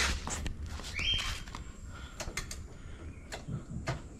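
Scattered light clicks and knocks of handling, irregular rather than in a steady rhythm, with a short rising chirp about a second in.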